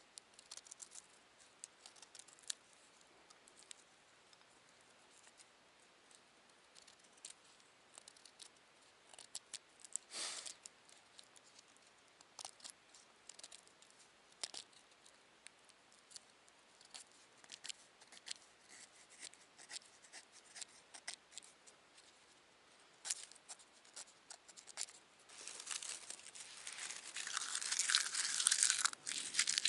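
Dry twigs and tinder being snapped and shredded by hand: a scatter of small crackles and tearing sounds, with a longer, louder stretch of rustling and crackling near the end.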